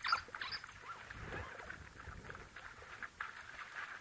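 African wild dogs wading into the shallow edge of a waterhole, water splashing and sloshing around their legs. A few brief high chirps come in the first half second.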